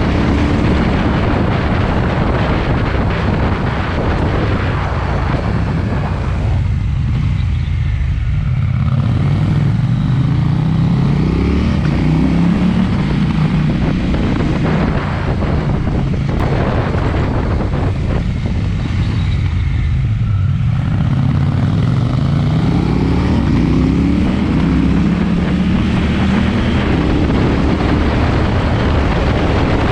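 KTM 790 Duke's parallel-twin engine through an SC-Project exhaust, ridden hard. Twice the engine eases off, then its pitch climbs steadily as it accelerates.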